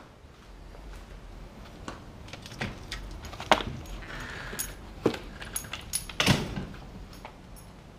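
Door and handling noises: a run of clicks, knocks and a light metal rattle, with the sharpest knocks about three and a half, five and six and a half seconds in.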